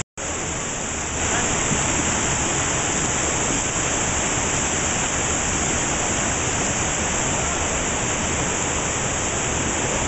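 Steady rush of water from a jungle cascade pouring over rocks, with a brief cut-out at the very start.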